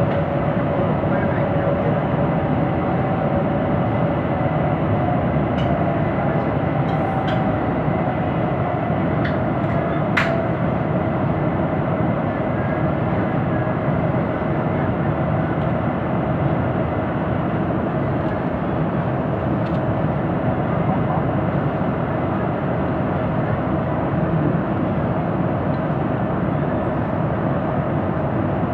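Electric commuter train running, heard from inside the car: a steady rumble of wheels and body. A faint whine drifts slightly lower in pitch over the first ten seconds, and there are a few light clicks, the sharpest about ten seconds in.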